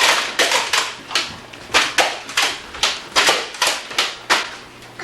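Nerf guns firing foam arrows in quick succession: a rapid irregular series of sharp pops and smacks, about two or three a second.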